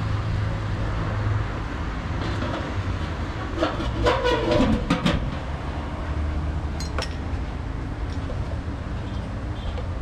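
Porcelain teapots clinking and knocking as they are handled on a table, in a cluster about four to five seconds in and a single sharp clink about seven seconds in, over a steady low rumble.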